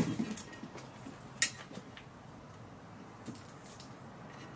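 Light metallic clicks and scrapes of a mounting bolt being slid along the slot of an aluminium channel rail, with one sharper click about a second and a half in.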